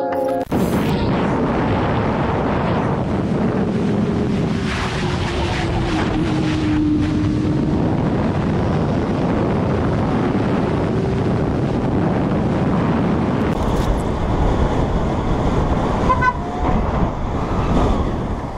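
Sport motorcycle engine running at speed under heavy wind rush, as heard from an onboard riding mic; the engine note drops and then climbs again midway.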